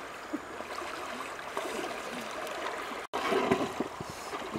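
Shallow river running and splashing around a large iron wok being pushed through the water. The splashing gets louder after a brief dropout about three seconds in.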